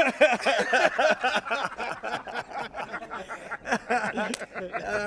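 Several men laughing and calling out excitedly in greeting, with a single sharp hand-slap of a high-five about four seconds in.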